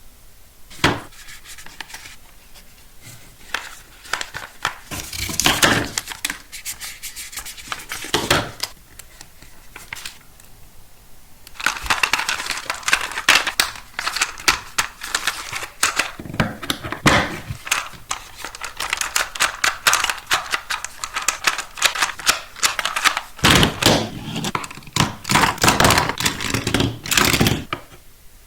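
Hands unboxing plastic toy track sets: scattered clicks and knocks at first, then about twelve seconds in a long stretch of rapid crackling and rustling of packaging, with heavier handling thuds near the end.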